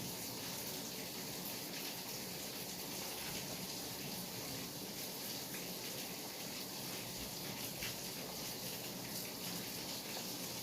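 Steady rain falling, an even hiss with scattered tiny drop ticks.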